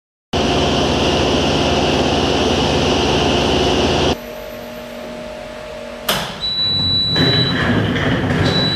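Industrial laundry machinery running: a loud steady motor noise starts suddenly and cuts off about four seconds in, leaving a quieter hum. A sharp knock follows about two seconds later, then more running noise with a high steady electronic tone sounding twice.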